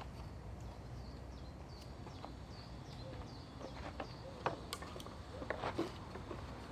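A bird gives a run of short, high chirps at about two a second. Then come a few sharp knocks and creaks of wood as pallet boards are levered apart with a chisel and hammer, the sharpest knock about four and a half seconds in.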